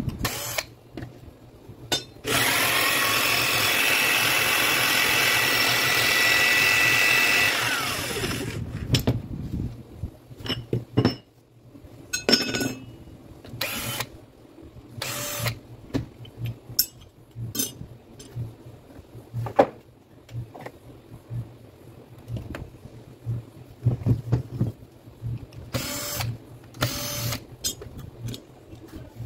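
Makita HM1303 demolition hammer's electric motor switched on and running for about five seconds with a steady whine, then spinning down with a falling tone once switched off. Afterwards, a series of separate clicks and knocks as the heavy tool is handled on the bench.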